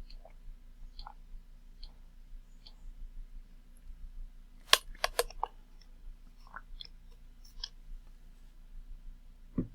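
Computer clicks: faint single clicks about once a second at first, then a quick run of four sharp clicks about five seconds in, a few scattered clicks after, and a low thump near the end.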